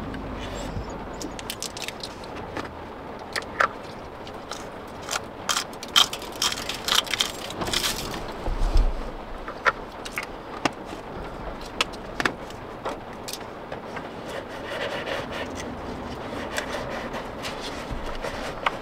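Small hard containers clicking and clattering against each other as a hand rummages through a fabric pouch and pulls one out, the clatter busiest in the middle, over a steady background hiss.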